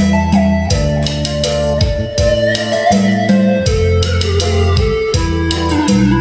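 Instrumental music with a drum kit, guitar and a heavy bass line, played loud through a large portable karaoke trolley speaker.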